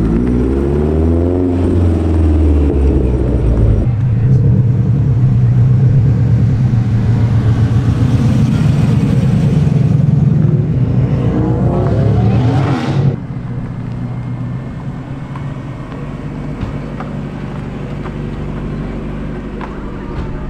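Japanese sports cars (a Toyota MR2, a Subaru Impreza, a Mazda MX-5) pull away one after another, engines revving as they accelerate past at low speed. The loudest is a deep, steady exhaust note through the middle that rises in pitch and cuts off abruptly about 13 seconds in. After that, a quieter engine runs steadily.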